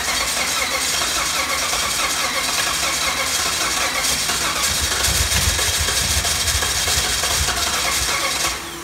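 Hemi V8 in a Jeep LJ started and running rough and clattery, then shut off near the end. The clanking is what the owners take for a probable dropped valve seat after the engine overheated.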